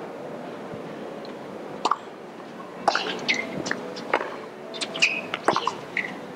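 A tennis serve and rally on a hard court: several sharp racket-on-ball strikes, the first about two seconds in, mixed with short squeaks from shoes on the court, over a low steady crowd murmur.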